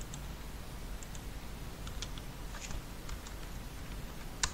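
Computer mouse and keyboard clicks: a few faint, scattered clicks, with a sharper one near the end, over a faint steady low hum.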